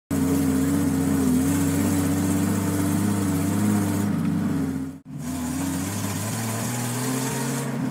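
Motor vehicle engine running steadily, cut off abruptly about five seconds in and starting again straight away, its pitch rising slightly near the end.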